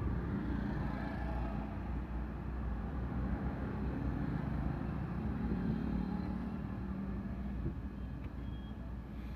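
Road traffic heard from inside a car stopped in a jam: a steady low rumble of idling engines, with no horns or other distinct events.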